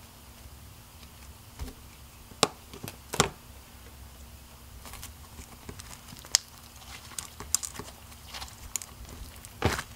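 Thick butter slime being poked and stretched by hand, giving scattered sharp clicks and small sticky pops, a few of them louder than the rest, over a faint steady hum.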